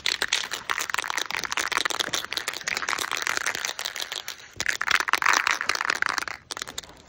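Aerosol primer spray can being shaken, its mixing ball rattling rapidly. There is a short break about four and a half seconds in, then more shaking that stops near the end.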